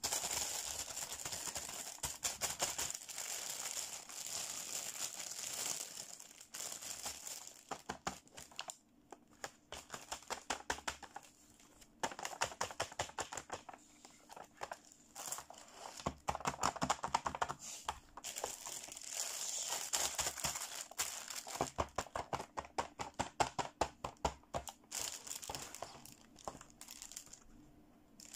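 Clear plastic toy packaging crinkling under handling fingers, in dense crackly runs with short quiet gaps, mixed with light clicks and taps of hard plastic toy pieces.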